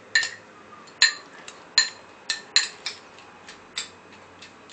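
A series of sharp clicks at irregular intervals, about seven of them, each with a brief high ringing.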